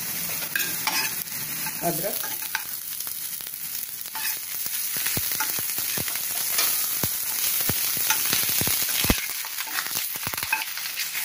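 Chopped garlic and ginger sizzling in hot oil in a nonstick pan, with a steady hiss, while a spoon stirs and scrapes them, making frequent clicks against the pan.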